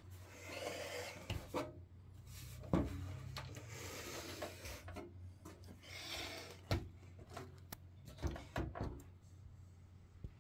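Box and packaging being handled: stretches of rubbing and scraping with several knocks, the loudest about three seconds in, over a steady low hum.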